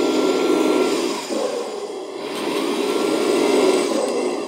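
RC dump truck's electric drive motor and gearbox running in low gear, spinning the drive shafts and both axles with the wheels off the ground: a steady whirring gear whine. It eases off about two seconds in, then picks up again.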